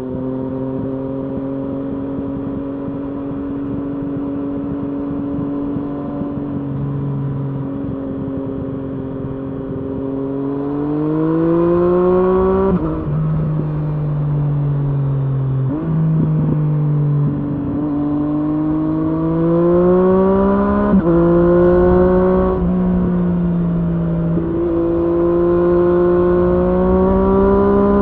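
Triumph Street Triple S inline-three engine through an SC-Project SC1-R slip-on exhaust with dB-killer. It holds a steady cruise for about ten seconds, then pulls hard through the gears, its pitch climbing and dropping back at each shift several times. Low wind rush runs underneath.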